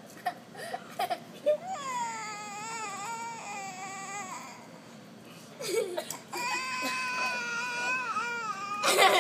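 A toddler crying in pain after bumping his head: two long wails, each about two and a half seconds with a pause between, the first starting high and sliding down. A short loud burst comes near the end.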